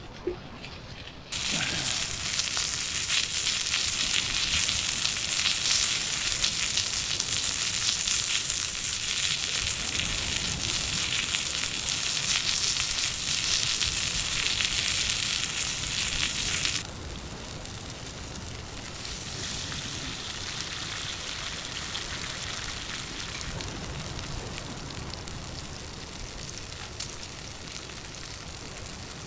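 Food sizzling in a hot pan over a campfire: the sizzle starts suddenly and loudly about a second in, as ingredients go into the pan, and drops to a softer sizzle a little past halfway.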